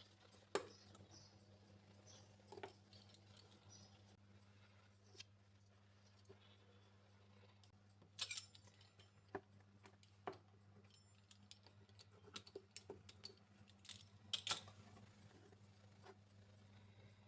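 Quiet kitchen handling sounds: scattered light taps and clicks of utensils and cookware, with two sharper metallic clinks, one about eight seconds in and one near the end, over a low steady hum.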